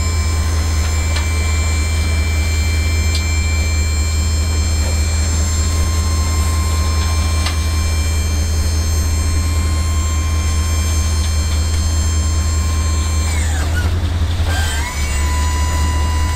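Dump bed's hydraulic hoist pump running with a steady whine over the truck's idling engine as it tips the loaded bed. About 13 seconds in the whine winds down, then speeds back up again.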